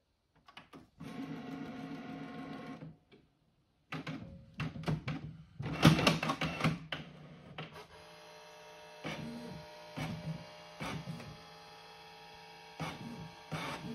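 Canon inkjet all-in-one printer starting up and printing a page: a few button clicks, a steady motor whine for about two seconds, then clattering as the mechanism and paper feed engage, loudest about six seconds in. After that comes a steady hum with short whirs and clicks about once a second as the print head moves across the sheet.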